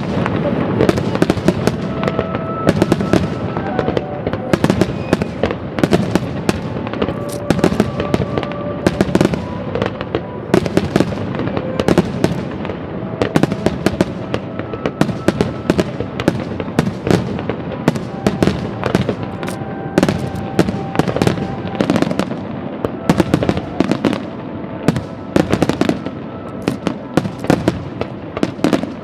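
An aerial fireworks display: a rapid, continuous barrage of shell bursts and crackling reports, many overlapping each second, with music playing faintly underneath.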